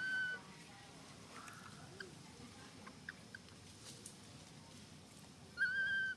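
A baby macaque's high, steady-pitched call, heard twice: once at the start and again about half a second before the end, each lasting about half a second. Faint ticks and rustles come between the calls.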